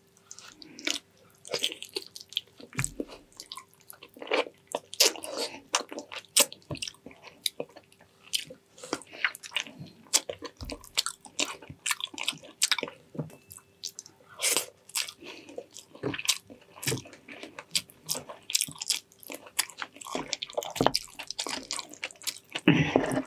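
Close-up chewing and lip smacking of a person eating soft, gelatinous braised pig's trotters: a steady run of irregular wet smacks and clicks.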